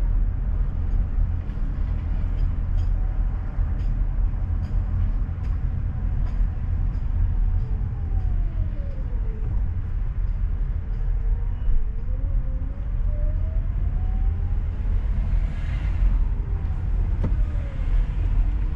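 A car driving, with a steady low rumble of engine and road noise. Faint, regular ticks come about every half second for the first several seconds.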